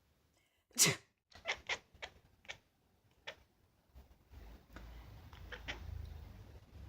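A person sneezes once, loudly, about a second in, and a cat answers with several short quack-like calls spread over the following seconds. A low rumble sits underneath in the second half.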